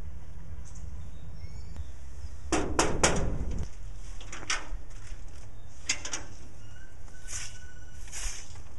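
Three quick knocks on a wrought-iron door, then a few separate clicks of the lock and latch as the door is unlocked and opened.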